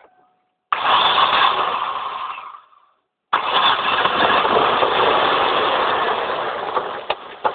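A 2000 Ford Focus's 2.0 DOHC four-cylinder engine starting after a no-start problem: a first loud burst that fades away, then a second start about three seconds in that catches and runs, its level dropping near the end as it settles.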